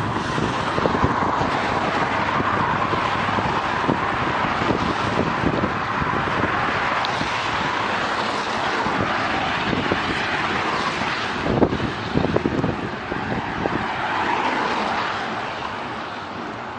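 Wind buffeting the microphone of a bike-mounted action camera, with tyres hissing on wet asphalt while riding at about 20 km/h. A cluster of knocks and rattles comes about twelve seconds in, and the noise eases near the end as the bike slows.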